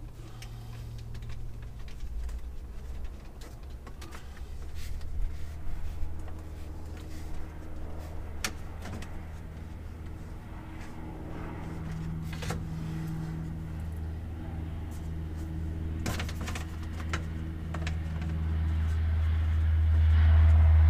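A low engine drone that grows louder near the end, with scattered clicks and knocks of hand tools working behind a Cessna 172's instrument panel.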